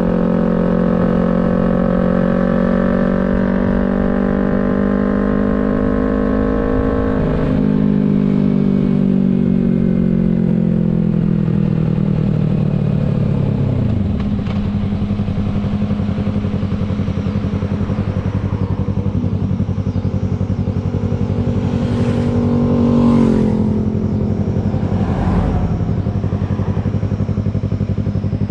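2023 Yamaha MT-03's parallel-twin engine under way: the engine note climbs slowly under throttle, drops about seven seconds in as the throttle is closed, then falls steadily as the bike slows for several seconds. It settles into a low steady note, with a brief rise in revs after about 22 seconds.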